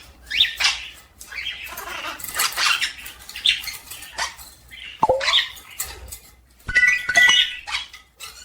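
A pet animal's short, high calls and squeaks, some sliding in pitch, with a sharp call falling in pitch about five seconds in.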